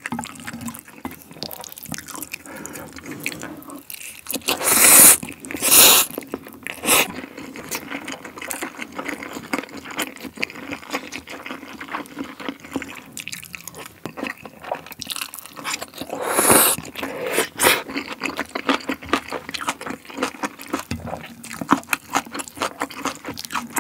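Close-miked eating sounds: wet chewing and smacking of jjajang noodles and green onion kimchi, with a few loud slurps a few seconds in and again about two-thirds of the way through.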